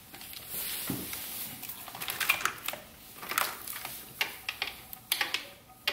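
Irregular metallic clicks and clinks of hand tools working on an engine's fuel rail bolts, with a socket being fitted to the bolts.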